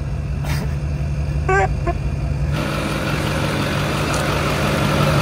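Giant monster truck's engine running steadily at low throttle while the truck crawls along, heard first inside the cab and then, from about halfway through, from outside with more tyre and driveline noise.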